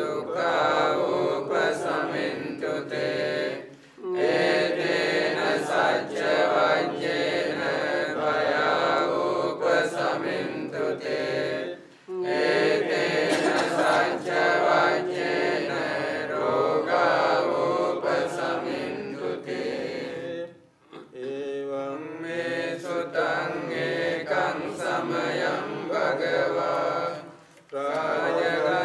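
A group of Theravada Buddhist monks chanting Pali paritta (pirith) blessings in unison. The chant runs in long phrases, each broken by a short pause for breath, about every eight seconds.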